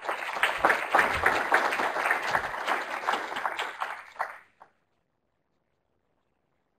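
An audience applauding after a talk: dense clapping that fades out after about four and a half seconds.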